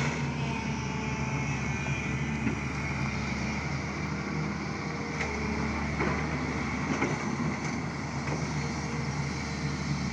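SANY excavator's diesel engine running steadily, with a few short knocks scattered through.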